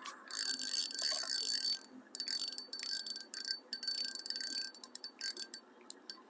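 Fishing reel whirring in stop-and-start spells with a thin metallic ringing: a long spell, then shorter ones, then a few quick clicks near the end.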